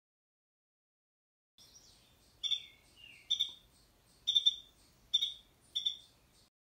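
Adult Carolina wren calling: five short, sharp, high calls about a second apart, the parent coaxing its fledglings out of the nest.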